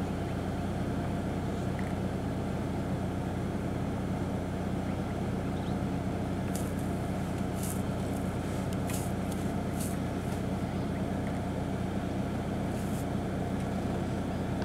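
A vehicle engine idling steadily, a low even hum, with a few short high ticks about halfway through and again near the end.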